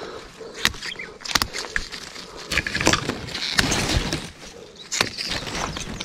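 Undergrowth rustling, with many sharp clicks of twigs and stems snapping, as someone pushes through brush picking royal fern (zenmai) shoots.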